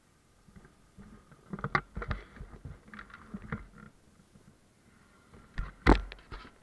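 Irregular knocks, taps and rubbing thumps from the camera or its housing being handled, in two groups, with the loudest sharp knock near the end.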